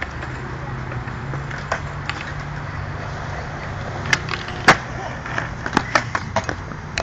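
Skateboard wheels rolling over concrete with a steady low rumble. From about four seconds in comes a run of sharp clacks of the board and wheels on the concrete, the loudest two close together just after four seconds.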